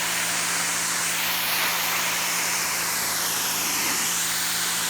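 Electric pressure washer running, its water jet hissing steadily against concrete over a steady motor hum as it strips dark mold-like staining.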